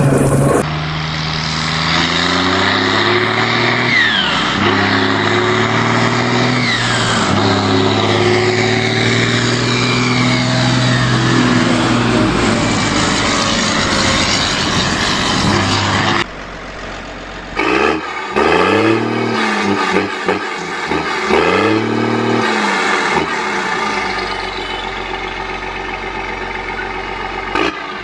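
Heavy diesel engines with whistling turbochargers running under load. The engine note steps up in pitch several times, and a high turbo whistle rises and falls over it. After a sudden cut about halfway through, an engine revs up and down three or four times.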